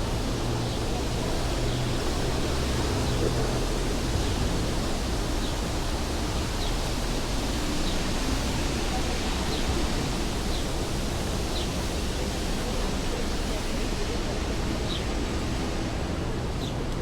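Steady outdoor ambience: an even rushing noise with faint voices murmuring in it, and short faint high chirps about once a second.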